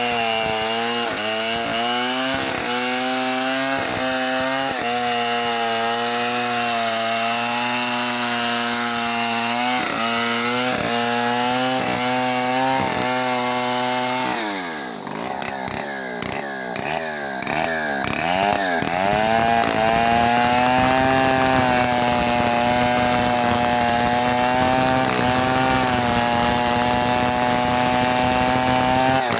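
Homemade chainsaw ripping a mango log lengthwise, its engine running at a high, steady pitch under load with small dips. About halfway through the revs drop sharply and the throttle is blipped several times. The engine then picks up again and runs steadily, a little louder.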